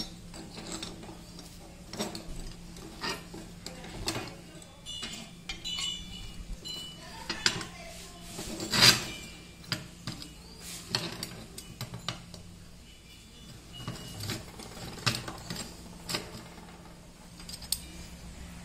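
Steel parts of a homemade bench drill clinking and knocking against each other and the steel workbench as they are handled and fitted together by hand: irregular clanks, a short metallic ringing a few seconds in, and the loudest knock about nine seconds in.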